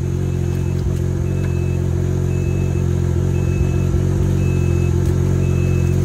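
Side-by-side UTV engine idling steadily, with a high electronic warning beep repeating about once a second.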